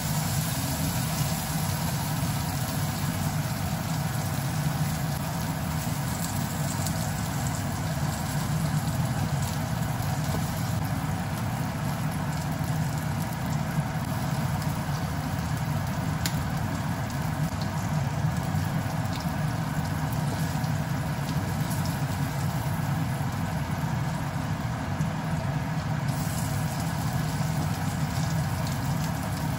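Steady low mechanical hum that does not change throughout, with a few faint clicks.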